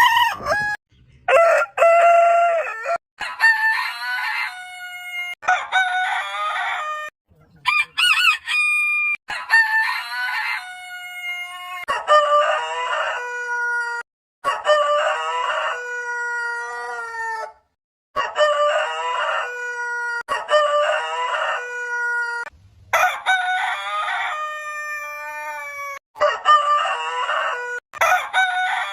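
Roosters crowing: about a dozen cock-a-doodle-doo crows one after another, each one to three seconds long and at a different pitch, with sudden cuts to silence between them.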